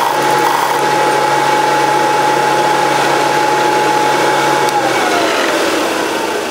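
Bench belt sander running with a steady whine while the tip of an engine valve stem is ground against the belt, taking a few thousandths off to open up the valve clearance. About five seconds in the whine starts to fall in pitch and grow quieter as the belt coasts down.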